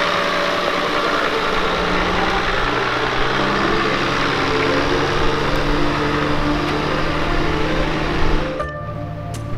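A 4WD's engine running steadily at low revs, its pitch lifting a little midway. About 8.5 seconds in it cuts off abruptly and music with chime-like notes starts.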